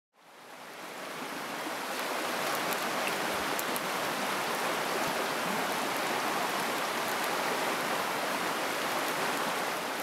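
Water rushing over rocks in a shallow stream: a steady hiss, fading in over the first two seconds.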